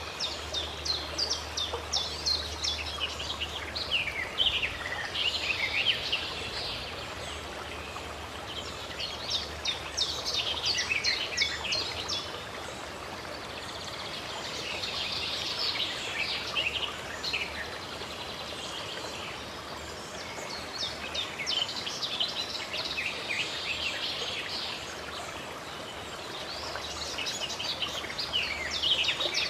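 Songbirds chirping in bursts of quick, high calls over a steady rush of running water.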